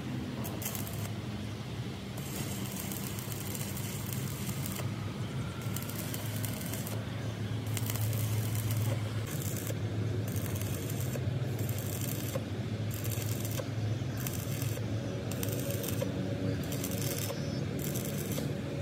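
Metalworking noise in a tank fabrication shop: a steady low machine hum with repeated on-and-off bursts of hissing, each lasting about half a second to a second.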